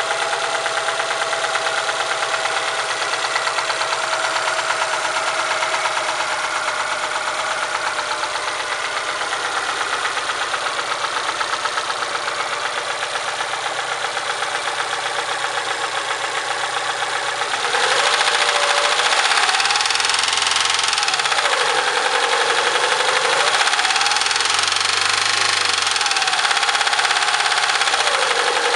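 ZAZ Sens (Tavria) MeMZ-307 four-cylinder engine running with a rapid valvetrain tapping, which the owner puts down to a worn rocker arm and camshaft lobe. A little over halfway through it gets louder and is revved up and back down twice.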